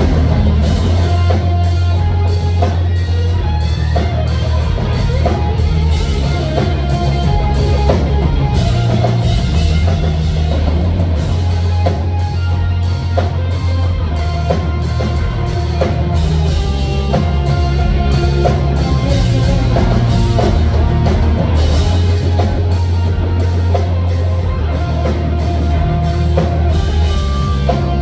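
Live instrumental rock played loud: lead electric guitar over a driving drum kit and bass, heard from the audience in a concert hall.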